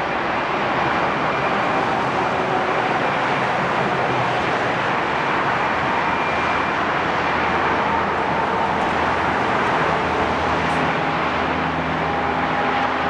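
Steady vehicle engine noise, even in loudness, with a faint low hum under it.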